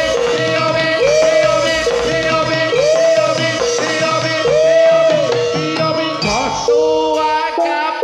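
Javanese jathilan dance music: a pitched melodic figure swoops up and back down over and over above a steady held note, with percussion underneath. Near the end the pattern breaks and shifts to a new phrase.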